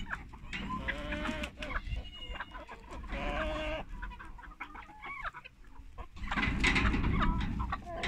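Domestic chickens clucking and giving short calls as the flock comes out of the coop, loudest about a second in and again around three seconds in.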